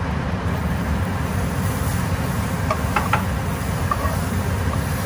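Kitchen range-hood exhaust fan running steadily over garlic butter sizzling in hot oil and paprika in a frying pan. A few light clicks of metal tongs against the pan come about three seconds in.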